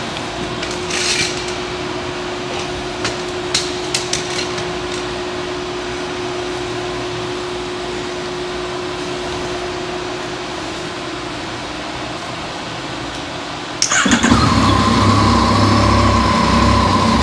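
Yamaha MT-09's inline-three engine started after a steady background hum with a few clicks: about 14 seconds in it fires suddenly and settles into a steady idle. This is the first successful start after a new battery and a repaired blown fuse.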